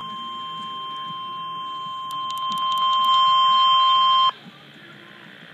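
NOAA Weather Radio's 1050 Hz warning alarm tone, heard through a weather radio receiver: one steady, high, continuous beep. It grows louder about halfway through, then cuts off suddenly near the end, leaving faint static hiss. The tone signals that a warning broadcast, here a severe thunderstorm warning, is about to follow.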